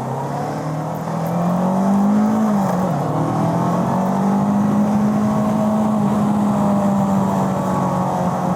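Bristol Venturi 500 motorcycle engine under way: its pitch rises as it accelerates for about two and a half seconds, dips briefly at a gear change, then holds steady while cruising.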